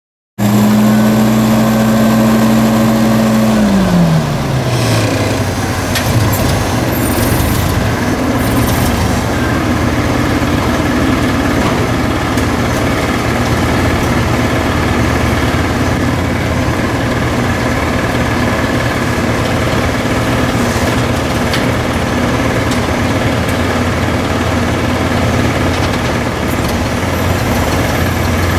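Propane-fuelled engine of a Hyster H30E forklift running. Its pitch holds high for the first few seconds, falls about four seconds in as the engine slows, and then stays steady while the forklift is driven.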